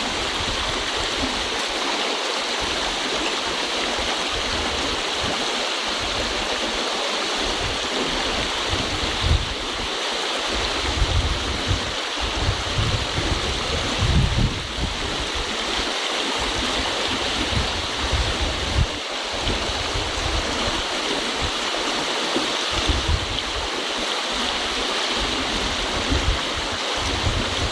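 River water running steadily, a constant rushing hiss, with an uneven low rumble underneath.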